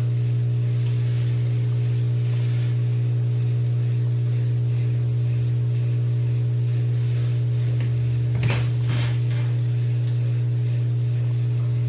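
Samsung dishwasher drain pump running at the start of a cycle, a steady hum with no grinding: it sounds fine. A couple of light clicks come about two-thirds of the way through.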